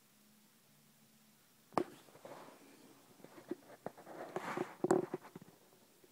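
Handling noise as the terrarium's glass front is opened and the phone is moved inside: a sharp click about two seconds in, then scattered clicks, scraping and rustling, loudest around five seconds in.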